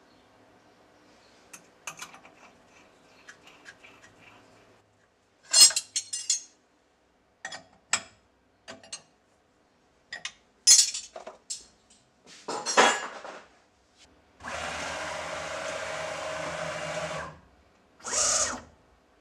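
Hand work at a CNC milling machine's spindle: light metal clicks as a collet and endmill are handled, then several sharp metallic clanks and scrapes as a wrench is used on the spindle. About two thirds through, a steady rushing noise runs for about three seconds, and one short burst of the same kind comes near the end.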